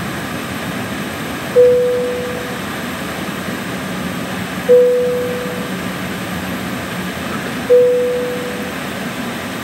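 Airliner cabin chime sounding a single soft tone three times, about three seconds apart, each fading out within a second, over the steady hum of the cabin air and engines before takeoff.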